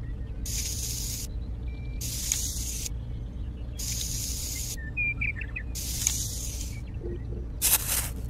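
Small metal trowel scraping through fine sand in five strokes, each under a second and about two seconds apart, as it traces lines; the last stroke is shorter and sharper.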